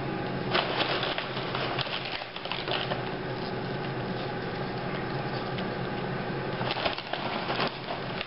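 A steady appliance hum, likely the microwave oven running, with two stretches of rapid crackling and rustling: the first from about half a second in until about three seconds, the second near the end.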